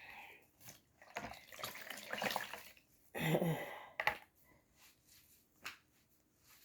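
Hot water sloshing and splashing in a basin in irregular bursts, with the loudest splash a little past three seconds and a few sharp clicks.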